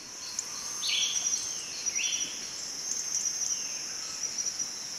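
Tropical rainforest ambience fading in: a steady high-pitched insect chorus with pulsing trills, and a call that drops in pitch, repeated about once a second.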